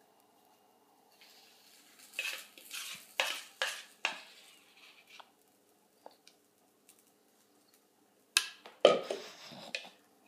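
A utensil scraping and knocking against a mixing bowl while pancake batter is emptied onto an electric griddle. There is a run of scrapes and knocks about two to four seconds in, a few faint ticks, then two louder knocks near the end.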